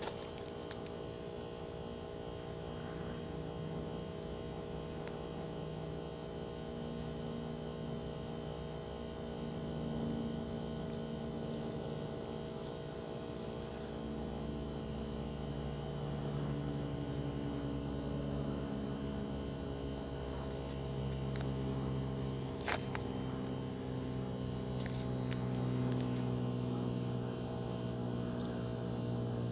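Steady hum made of several constant tones, with a lower drone that wavers and grows louder in the second half, and a single sharp click late on.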